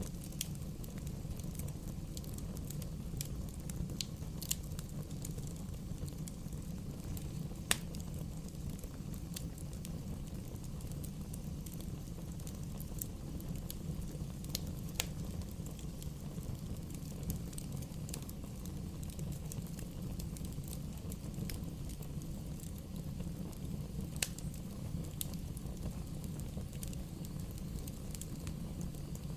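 Wood bonfire burning steadily, a low even rumble with scattered crackles and pops. The loudest sharp pop comes about a quarter of the way in.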